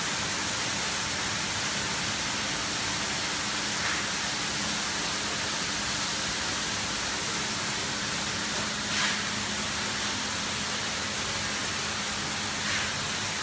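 Steady rushing hiss of roastery machinery running, with a faint low hum underneath. A few brief faint knocks, the clearest about nine seconds in.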